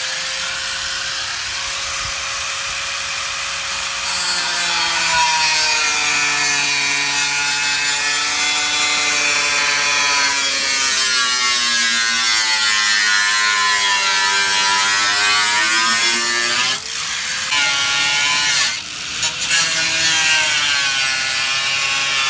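Corded angle grinder cutting into a car's sheet-metal front fender. It spins with a steady whine at first, then gets louder once it bites into the metal, its pitch sagging and recovering with the load. Near the end the whine drops out briefly twice.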